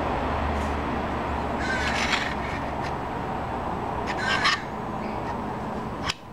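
A bird calling in two short bursts of harsh, repeated calls, about two seconds in and again about four and a half seconds in, over a steady hiss.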